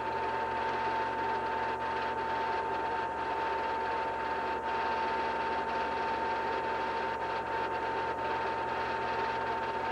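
16mm film projector running steadily: a continuous mechanical whirr with a steady whine through it.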